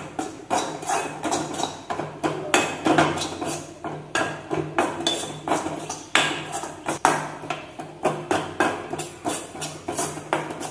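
A steel spoon scraping and knocking against a metal kadai in quick, irregular strokes, a few a second. The spoon is stirring dry-roasted chilli and coriander powder and breaking up its lumps.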